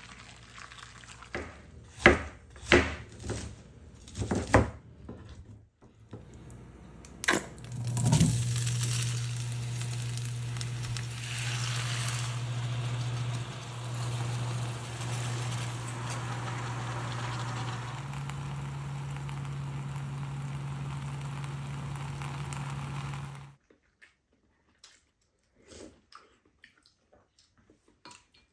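A few sharp knocks, then chopped fish cake sizzling steadily in a frying pan on a glass cooktop, with a low steady hum that steps up in pitch partway through. The sizzling cuts off suddenly, leaving faint small clicks of spoons and eating.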